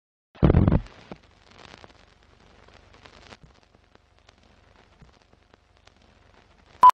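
Film-countdown-leader sound effect. A loud, short thump comes about half a second in, followed by faint old-film crackle and scattered ticks. It ends in a short, sharp, high beep, the leader's sync pop.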